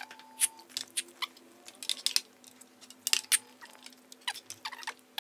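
Coffee being sipped from small tasting cups, with irregular light clicks and taps of cups and glassware on a table.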